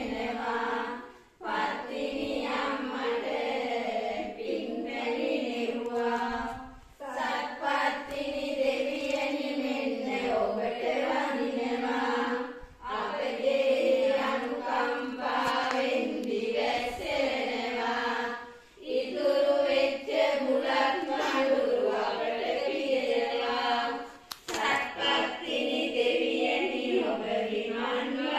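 A group of women, the kiri ammas, chanting a devotional song together in unison, in long phrases of about five or six seconds with short breaks for breath between them.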